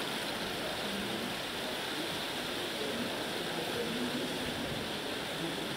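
Steady, even background hiss of an indoor riding hall, with no distinct sounds standing out.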